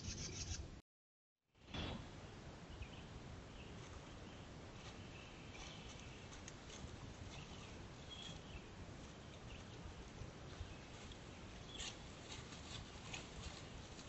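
Faint outdoor trail-camera sound: a steady low hiss with a few short high bird chirps and scattered soft clicks. Near the end comes a cluster of clicks as a black bear cub steps over loose shale rocks. About a second in, the sound drops out completely for under a second.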